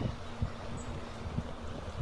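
A large herd of wildebeest splashing through a river: churning water with low thuds from hooves and bodies, and a faint low steady drone under it.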